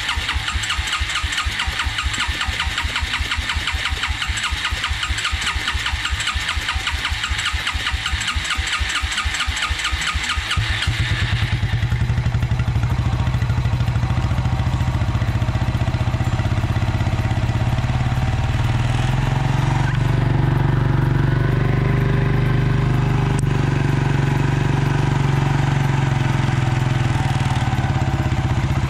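A 1996 Suzuki King Quad 300's single-cylinder four-stroke engine is cranked over by its electric starter with an even rhythm. About eleven seconds in it catches and settles into a steady idle. It is running on a freshly rebuilt carburetor with no airbox or air filter fitted, which the owner expects to make it run a little lean.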